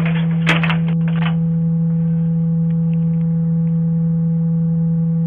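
A loud, steady, low electronic hum on one pitch, with crackling and clicks in the first second or so.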